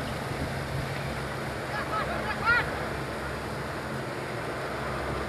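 Outdoor football-pitch ambience: steady wind noise on the microphone over a low hum, with a brief shout from the pitch about two and a half seconds in.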